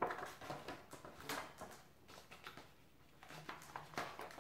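Pages of a large picture book being turned by hand: faint paper rustling and flapping, with a few louder flaps at the start, about a second in and near the end.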